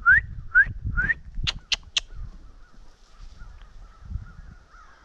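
Crows cawing: a run of four short rising caws, then three sharper quick caws, then fainter distant calling. A low rumbling of noise on the microphone sits under the first second.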